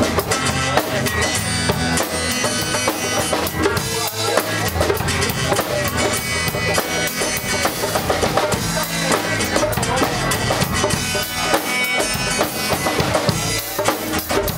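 Live band playing a rock song, a drum kit keeping a steady beat of kick and snare under bass and guitar.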